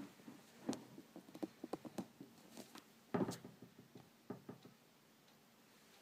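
Faint handling noise from a hand-held mobile phone: scattered small clicks and taps, with a louder knock about three seconds in.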